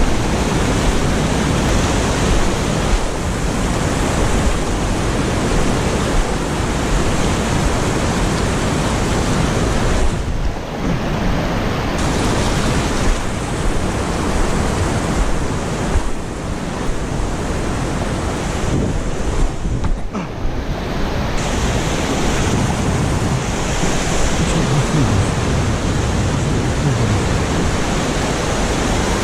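Steady rushing water of a small waterfall, a loud even hiss with no break, with a few abrupt shifts in its tone about a third and two thirds of the way through.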